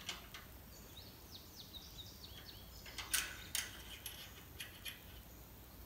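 Light metal clicks from a dipstick being handled and pulled out of its tube on a Kohler K321 single-cylinder engine, two sharper clicks a little after halfway. Before them come faint, high, short falling chirps, repeated several times.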